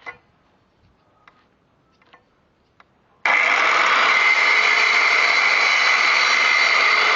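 A few light clicks, then a Skil 3160 miter saw with a diamond blade is switched on about three seconds in and runs at full speed with a loud, steady whine.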